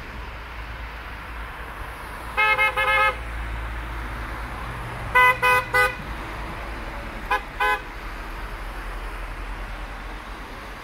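Car horns honking in short toots from cars driving past in a convoy: three quick toots about two seconds in, three more a few seconds later, and two near the end. Under them runs the steady hiss and rumble of passing traffic on a wet road.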